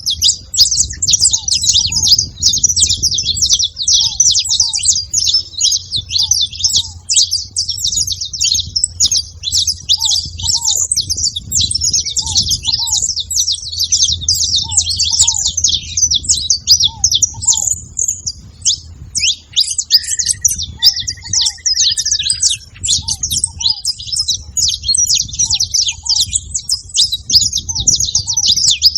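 Saffron finch singing continuously in a dense, high, chattering stream, with ground doves' soft low paired notes repeating every second or two underneath. A brief lower gliding call comes about 20 seconds in.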